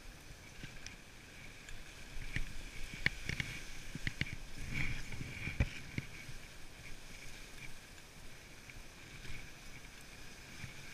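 Wooden dog sled gliding over the snow trail behind the team: steady hiss of the runners with scattered clicks and knocks from the sled, a few bunched in the middle.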